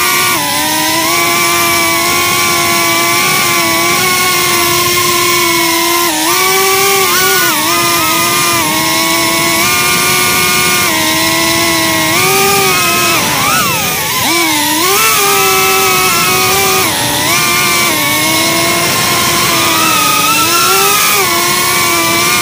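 FPV quadcopter's brushless motors and propellers whining, heard through the onboard Caddx Tarsier camera's microphone. The pitch wavers up and down with the throttle, with a quick swoop down and back up about two-thirds of the way through.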